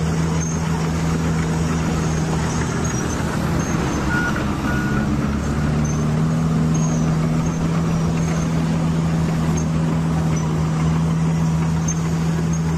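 A large engine running steadily with a low drone, its pitch stepping up slightly about six seconds in.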